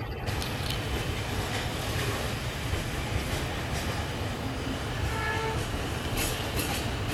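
A train rolling along the track with a steady rumble, its wheels clicking over rail joints a few times near the end. A brief pitched tone sounds about five seconds in.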